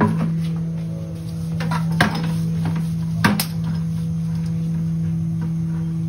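Steady hum from a failing gas service regulator at the meter, which the plumber calls shot. Three sharp metal clinks come over it, at the start, about two seconds in and about three seconds in, as a drain hose and its fittings are handled.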